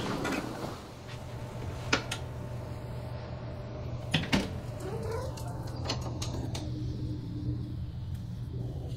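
A room door's lever handle and latch clicking twice in quick succession as the door is opened, followed by a short rising squeak and a few lighter clicks. A steady low hum lies underneath, and an earlier single click comes about two seconds in.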